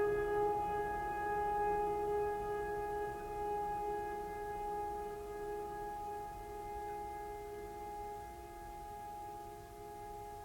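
Background music: a single held chord of steady tones that slowly fades out.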